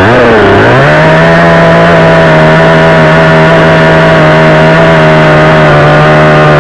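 62cc two-stroke chainsaw at full throttle cutting through an old carob branch. Its revs dip briefly in the first second, then climb and hold steady and high.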